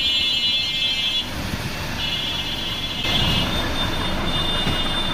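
Street traffic: a steady rumble of passing vehicle engines, with a high, buzzing tone that comes and goes three times.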